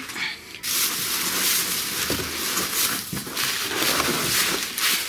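Plastic wrapping and cardboard rustling and scraping as a hand digs through a box of packed chair parts. It starts about half a second in and goes on steadily, with uneven crackles.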